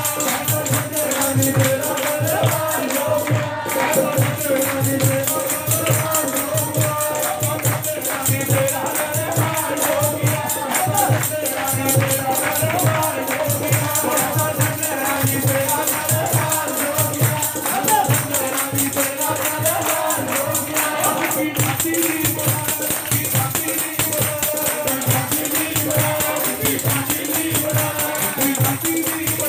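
Live Punjabi devotional music: a steady, even drum beat with jingling percussion and voices singing.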